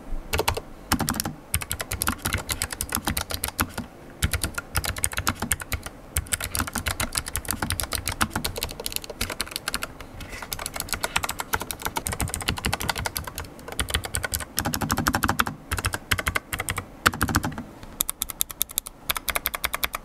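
Typing on an Ajazz AK832 Pro mechanical keyboard with blue switches: rapid, dense keystrokes, each with a sharp click, broken by a few brief pauses.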